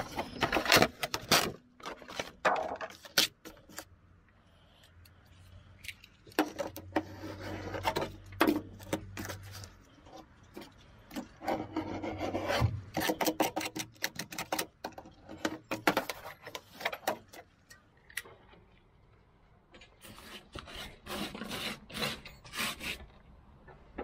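Old rubber lining and trim being pried and pulled off the inside of a 1994 Case 590 Turbo backhoe cab by hand and with a small hand tool: irregular scraping, rubbing and sharp clicks in spells, with two short pauses, one about four seconds in and another near eighteen seconds.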